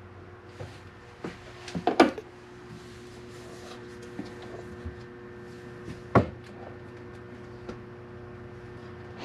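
Knocks and clunks of hands working inside a kitchen sink cabinet around the plastic drain pipes, with a cluster of louder knocks about two seconds in and one sharp knock about six seconds in, over a faint steady hum.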